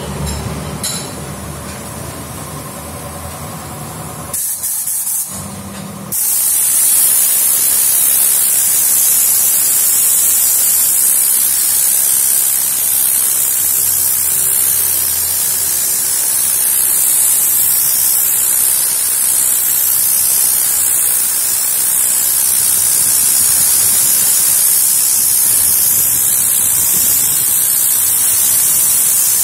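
Tornador compressed-air cleaning gun blasting cleaning fluid against a car's fabric headliner to lift out the dirt. After two short bursts it settles into a loud, steady hiss from about six seconds in.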